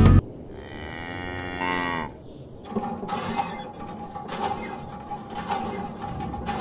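A cow mooing once, a long call that bends in pitch, lasting about two seconds. Then a steady whine with scattered ticks sets in.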